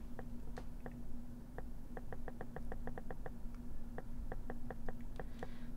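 Typing on a keyboard: quick, irregular key clicks in short runs with brief pauses, over a steady low hum.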